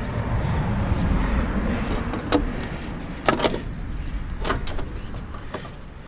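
Low rumble of a running vehicle that slowly fades, with a few sharp clicks and knocks.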